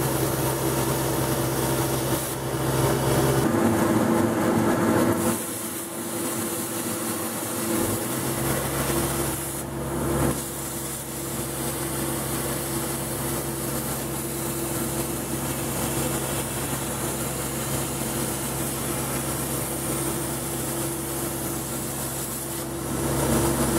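Air plasma cutter with a non-pilot-arc contact torch cutting steel plate: a steady hiss from the arc and its air jet. Under it runs the steady hum of a sawdust extraction blower drawing air down through the table.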